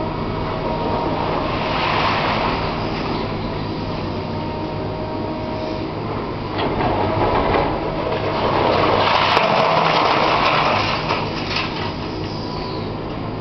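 A long-reach demolition excavator working a concrete ruin: its diesel engine and hydraulics run with a steady hum while concrete crunches and rubble falls in swells, loudest a little past two-thirds of the way through.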